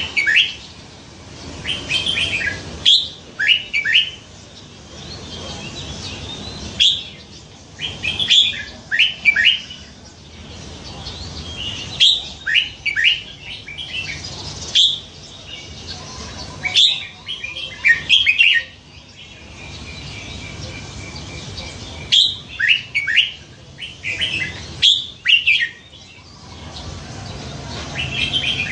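Caged red-whiskered bulbul singing: clusters of short, quick whistled notes that sweep up and down. Each phrase lasts two to three seconds and comes back every few seconds, about six times.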